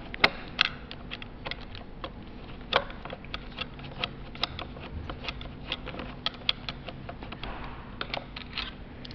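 Irregular sharp clicks and ticks of a metal screwdriver against the metal joint housing of the tube as it is worked into the hinge slot, a few louder knocks among them, over a faint steady hum.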